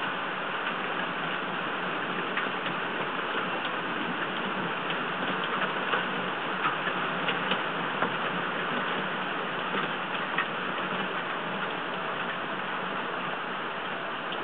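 Steady hiss of heavy storm rain, with scattered sharp ticks of drops striking the waterproof camera close to the microphone, most of them in the middle of the stretch.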